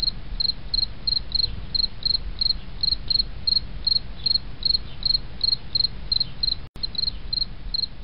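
Insect chirping: short, evenly spaced high chirps, about three a second, over a low steady rumble, with a brief break a little before the end.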